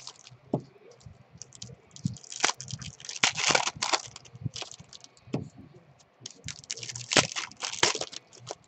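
Foil wrapper of a Topps baseball card pack being torn open and crumpled by hand: irregular bursts of crinkling and crackling, with the loudest stretch a little past a third of the way in and another near the end.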